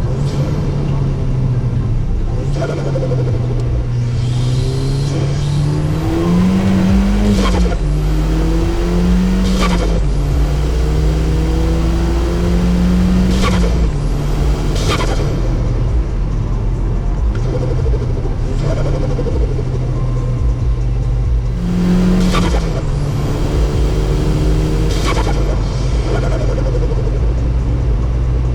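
Audi S3 8P's turbocharged 2.0-litre four-cylinder pulling hard through the gears with an open intake. The engine note rises and drops at each shift, and turbo flutter (compressor surge) whooshes come repeatedly as the throttle closes.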